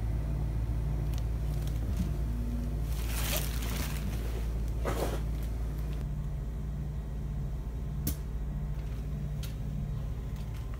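Running noise of a Class 465 electric multiple unit heard from inside the carriage: a steady low hum as the train moves, with two short hissing rushes a few seconds in and a sharp click near the end.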